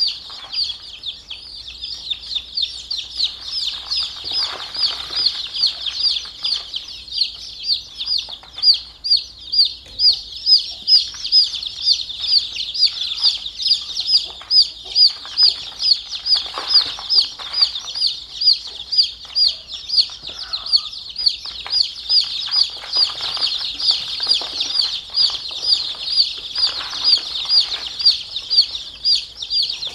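A brood of newly hatched chicks peeping without a break, a dense chorus of short, high-pitched cheeps coming several a second.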